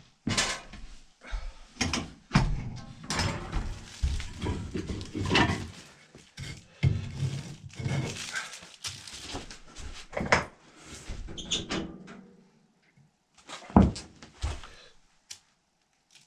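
Split firewood being laid into a wood stove's firebox: a run of wooden knocks and clunks against the wood and the stove's metal, with rustling between them. It thins out after about twelve seconds to a few separate knocks, one sharp and loud.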